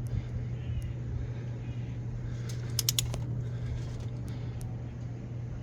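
A few faint, short metallic ticks as a torque wrench is pulled slowly on a cylinder head bolt, clustered about two and a half to three seconds in, over a steady low hum. The wrench has not yet reached its set torque.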